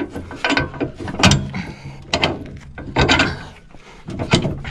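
Hand tools working on the steel hitch where a rotary tiller mounts to a tractor's lower link arm: irregular metallic clicks and clanks, with a few sharp strokes roughly a second apart.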